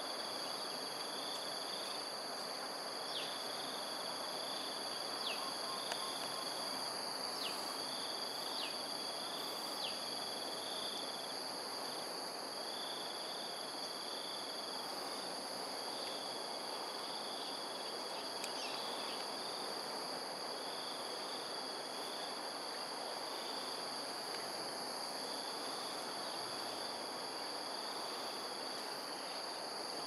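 Steady, high-pitched drone of insects, with a pulsing trill that keeps breaking off and starting again every second or two. A few short falling chirps come in the first ten seconds and again near the two-thirds mark, over a steady background hiss.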